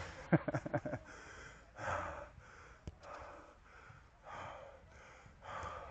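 Heavy breathing close to a head-worn microphone, a breath about every second, as from a player exerting himself. In the first second there is a quick run of sharp knocks.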